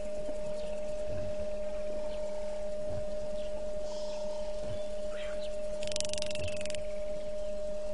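A steady electrical hum, a high, even tone, runs throughout. Over it are faint bird chirps and a brief rattling burst about six seconds in.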